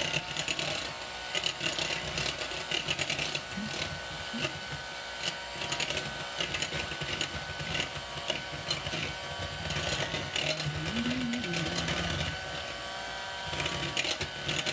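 Electric hand mixer running steadily with a constant motor whine, its beaters whipping melted butter and egg in a bowl.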